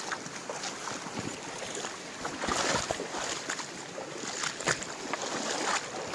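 Shallow river water flowing, with irregular splashes of wading steps.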